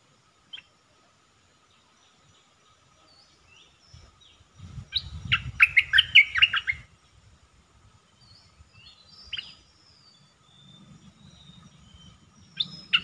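Caged decoy bulbul (dok taeng) singing. A single short note comes just after the start; from about five seconds in there is a loud run of quick notes lasting about two seconds. A few scattered single notes follow, and another quick run begins just before the end.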